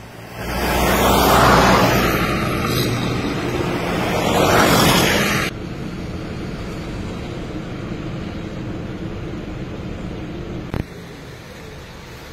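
Road traffic: two vehicles pass close by in the first five seconds, each swelling and fading. The sound then cuts suddenly to quieter, steady street noise with a low hum and a single short knock near the end.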